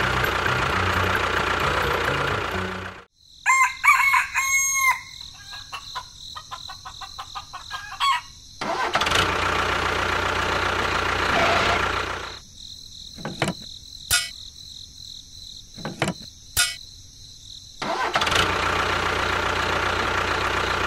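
A tractor engine runs in three stretches: at the start, again in the middle and again near the end. Between the first two, a rooster crows once, a few seconds in, with quieter clicking after it.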